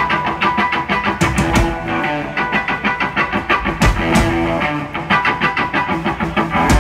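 Live psychedelic rock band playing electric guitar and bass over drums, a fast, busy rhythm with heavy low drum hits about four seconds in and near the end.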